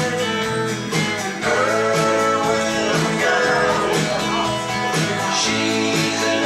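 A live band playing a country-style song: acoustic guitar with a bass line underneath and a voice singing.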